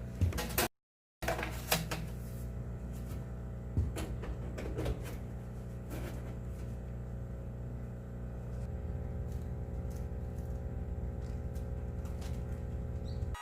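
A steady low hum with scattered clicks and knocks, most of them in the first few seconds.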